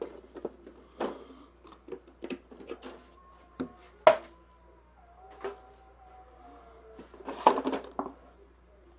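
Irregular knocks and clatters of a storage unit and its packaging being handled and searched, with drawer-like opening and closing sounds; the loudest is a sharp knock about four seconds in, with a burst of clatter near the end.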